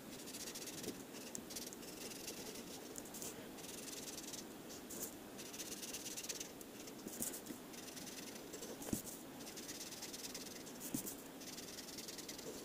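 Faber-Castell whiteboard marker scribbling on paper as it fills in shapes: irregular bursts of scratchy hiss from quick back-and-forth strokes, with a couple of light knocks of the tip against the paper.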